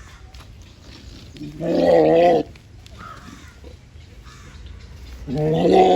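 Male goat bleating twice, the first call coming in between one and two seconds in and the second near the end. Each call lasts just under a second and has a wavering pitch.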